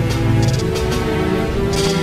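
Background music: sustained chords over a steady beat with crisp high ticks.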